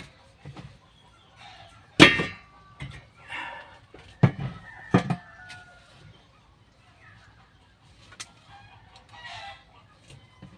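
Three sharp knocks, about two, four and five seconds in, the first the loudest and briefly ringing. Chickens cluck and crow faintly between them.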